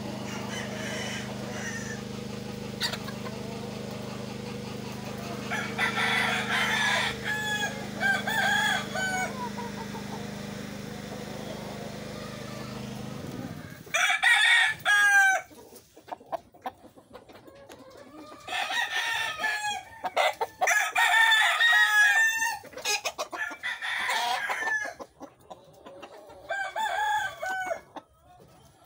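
Several henny gamefowl roosters crowing one after another, with some clucking between the crows. A steady low hum runs under the first half and stops suddenly about halfway through.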